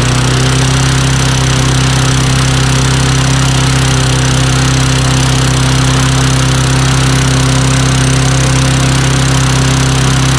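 Craftsman push mower's Tecumseh single-cylinder engine running steadily at a fast, even speed. The owner puts the high RPM down to a governor spring that is way too strong.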